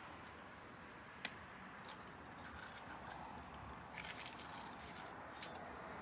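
Hen's eggs being cracked by hand over metal cooking pots: faint sharp cracks, one about a second in and a cluster around four seconds in.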